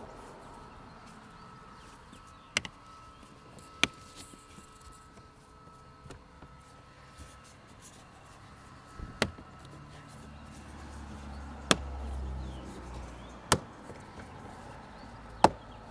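Plastic clips of a Tesla Model 3's cowl vent cover snapping into place as the cover is pressed down: about six sharp, separate clicks spaced a second or more apart.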